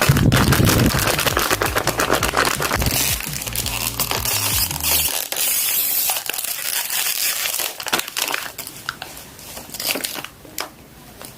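Packaging being crinkled and rustled open by hand, a dense run of crackles that thins out near the end. Background music with a low bass line plays under it and stops about halfway through.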